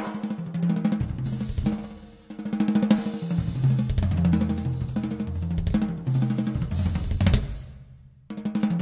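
A drum kit played fast in rolls and fills across snare and toms, with bass drum and cymbal hits and the low drums ringing. The playing eases off after a loud hit about seven seconds in and starts again just before the end.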